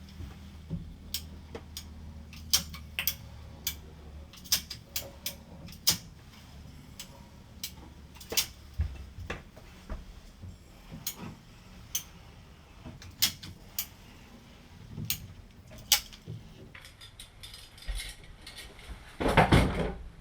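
Irregular sharp clicks and knocks of hands working with tools and building materials, over a low hum that stops partway through, then a louder rush of noise lasting about a second near the end.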